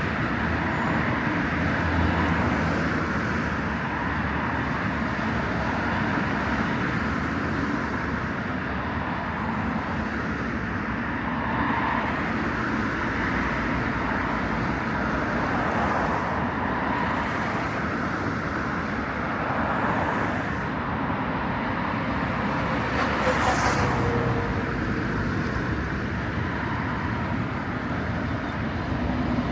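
Steady road traffic on a busy city street: a continuous wash of cars passing. About three-quarters of the way in there is one brief, sharper noise.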